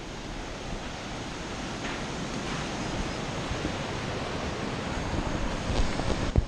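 Steady rush of a fast mountain river below a suspension bridge, mixed with wind buffeting the microphone. A sharp knock comes near the end.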